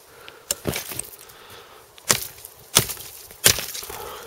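Gerber Bear Grylls parang chopping a thin branch in about five sharp, separate blows. The springy branch flexes under the blade, so it takes several strikes to cut through.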